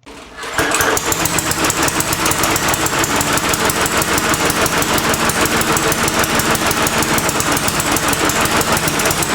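Briggs & Stratton 300 Series 148cc single-cylinder lawnmower engine running, with a rapid, uneven pulsing beat. The roughness is the sputter of an engine running too rich.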